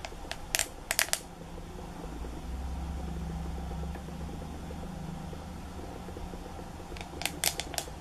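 The corrugated bendy section of a plastic drinking straw clicking as it is pulled out and pushed in. A quick run of clicks comes in the first second and another near the end, over a low steady hum.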